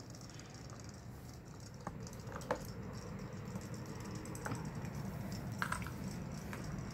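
Small plastic robot fish toys in a plastic basin of water: scattered light clicks and taps, several through the middle and later part, over a faint steady hum.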